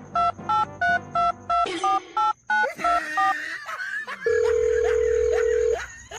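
Telephone keypad being dialled: about ten short touch-tone beeps, each two tones at once, over the first three seconds. A steady single tone follows for about a second and a half.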